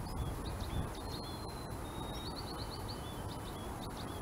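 Small birds chirping in short high notes, with a quick run of notes about two seconds in, over a steady low rumble of outdoor background noise.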